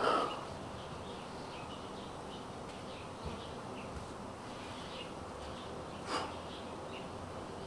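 Backyard ambience: a steady background hiss with faint, scattered bird chirps, a short louder sound at the very start and one short sharp knock about six seconds in.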